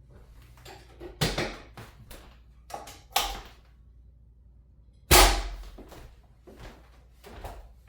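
Chiropractic adjustment: a few short, sharp thuds with rustling of body and table, the loudest about five seconds in.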